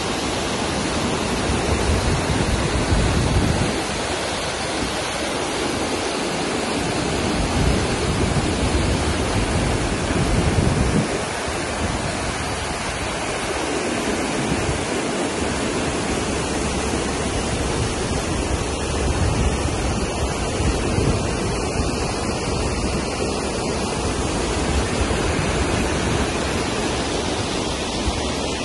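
White water rushing over a river weir, a steady, dense rush of turbulent water with uneven low rumbles of wind on the microphone underneath.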